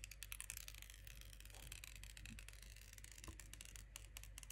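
Paper protective wrap being peeled off a phone's glass screen: a sharp tick as the tab is pulled, then a soft crackling peel that thins out to a few scattered crackles after a couple of seconds.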